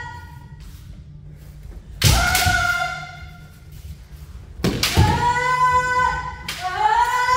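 Kendo exchange: a sharp shinai strike about two seconds in with a short kiai shout, then another strike near five seconds followed by two long, drawn-out kiai shouts.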